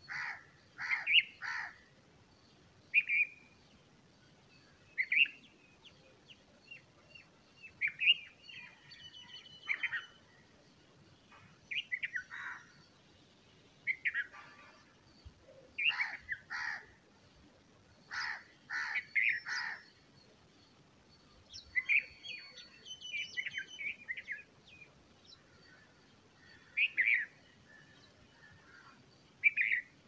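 Bulbul chirping: short bright calls in bunches every second or two, with thinner high-pitched notes in between.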